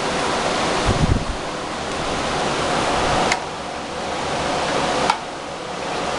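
Steady hiss of background noise, with a sharp click about three seconds in and another about five seconds in; after each click the hiss drops a little.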